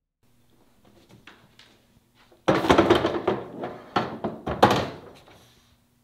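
A corkboard on a whiteboard being handled and pressed, heard as a sudden run of loud thuds and clatter starting about halfway in, after a faint hum of room tone.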